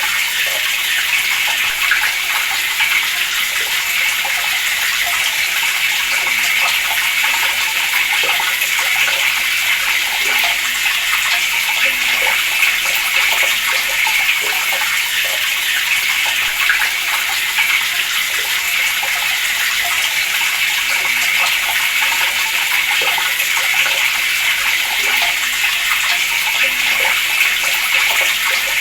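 Water running steadily from a tap, an even splashing rush.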